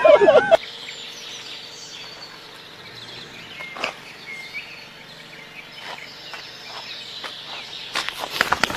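Quiet outdoor background with a few faint, short high chirps. A loud pitched, wavering vocal sound cuts off about half a second in, and a rapid crackling or rustling starts near the end.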